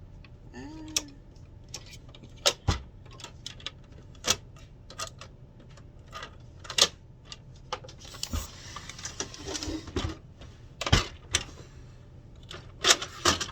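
Hard plastic parts of a cutting machine and its accessories being handled: irregular clicks, taps and knocks, with a stretch of packaging rustling about eight seconds in.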